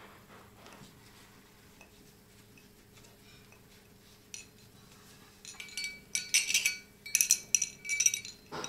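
Metal medals clinking and jingling against each other as they are handled on a wall-mounted medal hanger. A run of bright, ringing clinks starts a little past halfway and continues to near the end.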